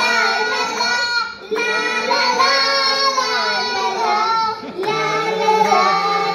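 A group of young children singing together into microphones, in sung phrases broken by short pauses about a second and a half in and just before five seconds in.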